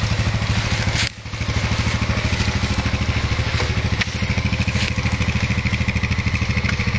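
ATV engine running at low revs with a steady, fast throb. It briefly drops in level about a second in, and a faint high whine comes in near the end.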